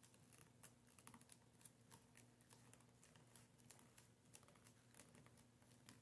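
Faint, irregular soft ticks and rustles of glue-coated cardstock being rolled tightly by hand around a wooden dowel.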